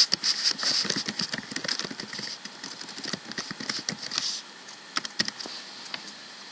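Rapid typing on a computer keyboard, a fast run of key clicks that thins out about four seconds in to a few scattered clicks.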